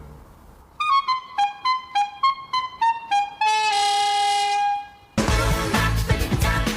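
A short musical jingle of about ten quick notes stepping downward, ending on one long held note. About five seconds in, loud backing music starts abruptly.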